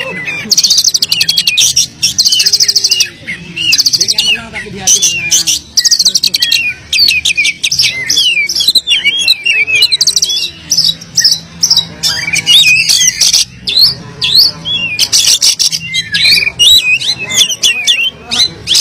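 Oriental magpie-robin singing a long, loud, varied song of whistles, sweeping notes and fast buzzy trills, rich in phrases copied from other birds.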